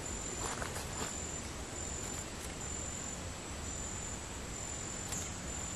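An insect trilling on one high-pitched note, in stretches of about half a second to a second with short gaps between them, over a low background rumble, with a few faint clicks.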